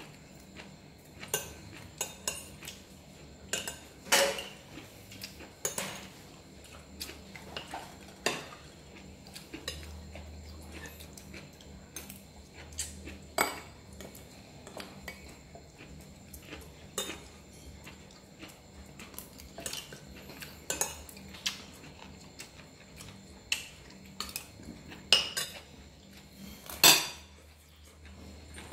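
Metal spoons clinking and scraping against ceramic plates and a small sauce bowl while people eat: irregular light clicks with a few louder knocks, the loudest near the end.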